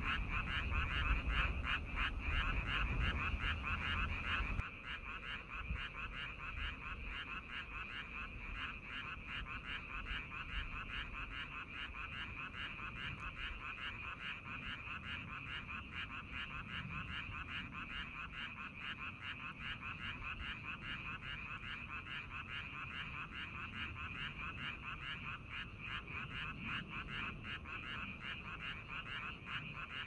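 A dense chorus of frogs calling in fast, overlapping pulses. A low rumble runs under it for the first four or five seconds and then cuts off abruptly.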